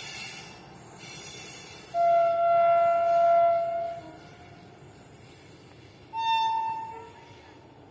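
WAG9 electric locomotive's horn sounding twice: a long steady blast of about two seconds, then a shorter, higher-pitched blast about two seconds later.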